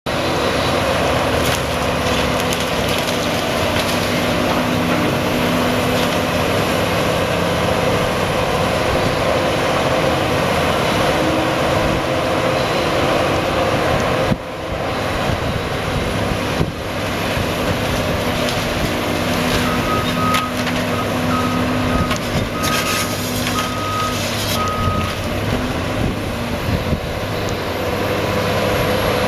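Caterpillar 320C hydraulic excavator's diesel engine running steadily under load while it demolishes a brick house, with crunching and clattering of breaking debris. About two-thirds of the way through, a reversing alarm beeps repeatedly for several seconds.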